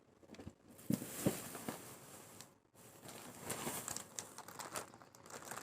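Plastic grocery packaging crinkling and rustling as items are handled, with a couple of light knocks about a second in.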